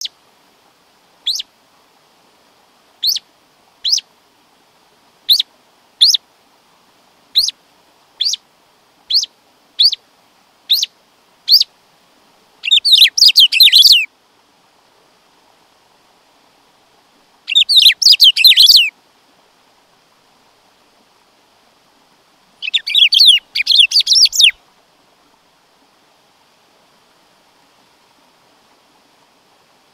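Black-throated saltator (bico-de-pimenta) singing: about eleven short, sharp whistled notes, each sliding downward, spaced roughly a second apart, then three loud warbled phrases of one and a half to two seconds each, several seconds apart.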